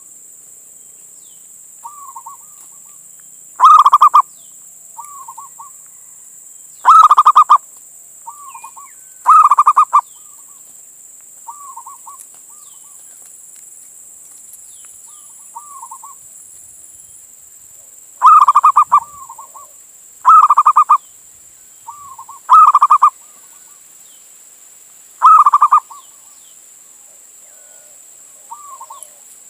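Male zebra dove (perkutut) calling: seven loud, rapidly trilled coos, each about half a second long, come a few seconds apart, with softer short coos in between.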